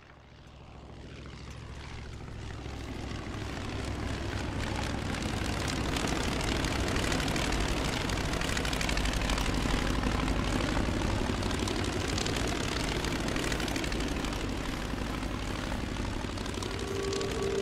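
Propeller aircraft engine droning, fading in over the first few seconds and then holding steady. Music comes in near the end.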